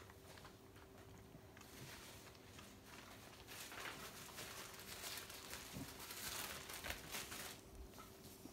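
Faint rustling and scuffling of a dog's plush bedding as the whelping dog shifts and a gloved hand reaches in. The rustling is loudest in the second half, over a faint steady hum.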